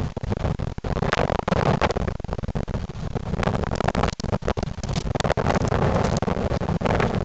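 1998 Ford Crown Victoria Police Interceptor's 4.6-litre V8 running on the move with an exhaust leak, heard under choppy, gusting wind noise on the microphone.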